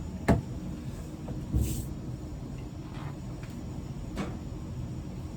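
Plugging a dryer's power cord into the wall outlet: a sharp click, then a heavier knock with a short hiss about a second and a half in, and a few lighter clicks, over a steady low hum.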